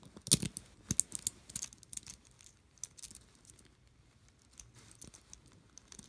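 Crystal beads of a beaded jewellery strand clicking against each other as they are handled, with a quick cluster of sharp clicks in the first second and scattered lighter clicks after.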